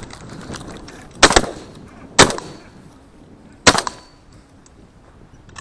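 Shotgun fired three times in quick succession, about a second and then a second and a half apart. Each loud, sharp report is followed by a short echo.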